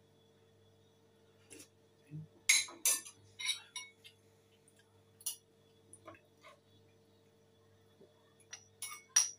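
Metal spoon clinking and scraping against a ceramic bowl: a run of sharp clinks about two and a half seconds in, a few single clinks after, and another run near the end. A faint steady hum sits underneath.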